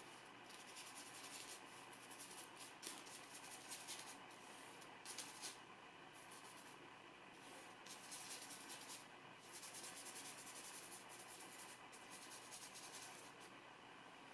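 Faint brushing of a long-bristled flat hog-hair brush on paper and on the palette as oil paint is mixed and laid on: soft, scratchy strokes in short repeated bursts.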